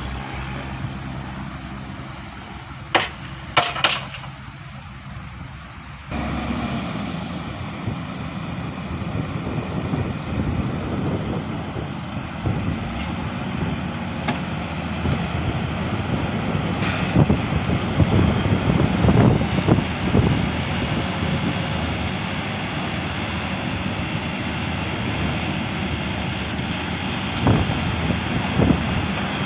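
Heavy diesel earthmoving machinery running with a steady low rumble, getting louder about six seconds in. There are sharp metallic knocks early on, a brief high hiss like an air brake past the middle, and more clanks near the end.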